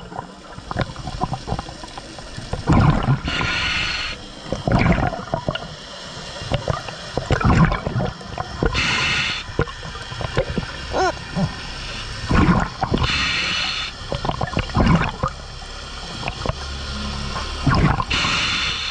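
Scuba diver breathing through a regulator underwater. Four hissing inhales come about every five seconds, with gurgling bursts of exhaled bubbles between them.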